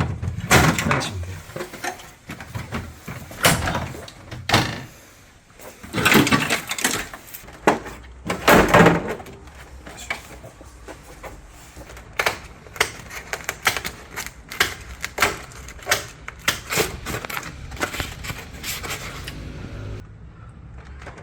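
Irregular clicks, knocks and rattles of plastic and metal parts being handled as an air conditioner is taken apart, with a few louder scraping bursts about six to nine seconds in.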